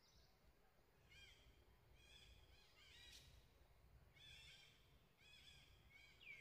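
Faint, high-pitched animal calls in short bursts of chirping notes, roughly one burst a second. A whistle slides down and levels off near the end.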